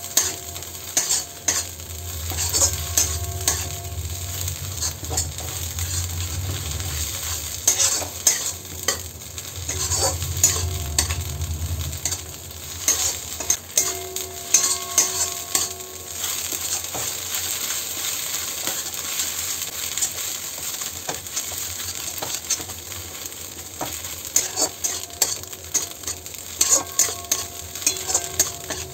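Mustard greens frying in ghee in a kadai, sizzling steadily, while a metal spatula scrapes and taps repeatedly against the pan as the mash is stirred. A low rumble runs underneath until about twelve seconds in.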